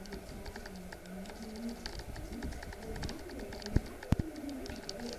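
Sheepadoodle puppies making short, low grumbling growls as they play. Light ticking runs throughout, and there are two sharp knocks about four seconds in.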